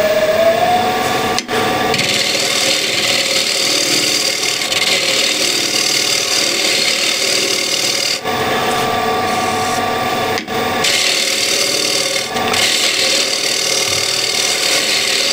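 Wood lathe running with a steady motor hum that rises slightly in pitch at the start, while a tool smooths the spinning cherry bowl blank. The rasping hiss of the cut comes in several passes, breaking off briefly about four times.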